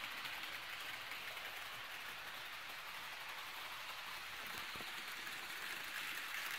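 Steady hiss of an HO scale model train running along the track, growing a little louder near the end.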